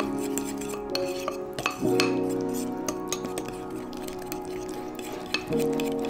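Metal fork stirring thick batter in a ceramic bowl, scraping and clinking against the bowl a few times. Soft background music with sustained chords plays under it, the chord changing about two seconds in and again near the end.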